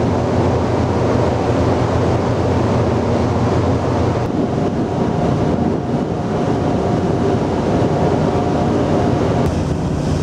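Steady wind rumble on the microphone mixed with the rush of sea water, heard from the deck of a moving cargo ship. A faint steady whine sounds for a few seconds in the middle, and the hiss brightens near the end.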